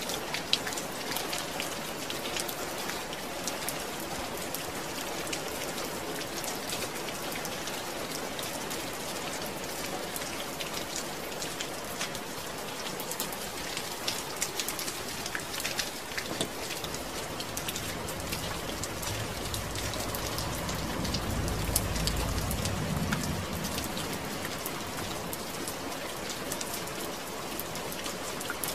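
Steady rain falling, an even hiss with many individual drops ticking sharply on a surface. A low rumble swells and fades about two-thirds of the way through.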